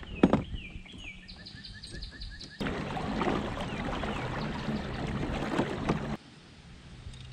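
A sharp knock, then birds singing, with a fast run of repeated high notes. After a cut a steady rush of wind and water comes from the moving kayak, birds still calling over it, and it drops to a quieter stretch near the end.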